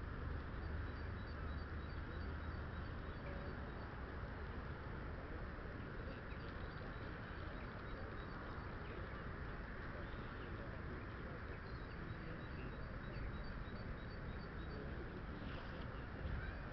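Steady open-air ambience with wind buffeting the microphone as a low rumble. Through most of it runs a faint, high, rapidly repeating tick or chirp.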